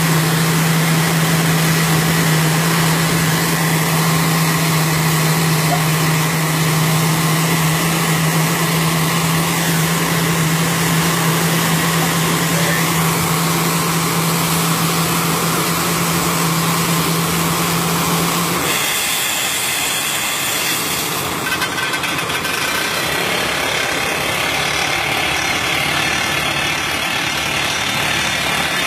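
Hydraulic rock drill on a Hyundai 330 excavator boring into stone, with the machine's engine running. A steady low hum cuts off suddenly about two-thirds of the way through, leaving a dense rushing noise.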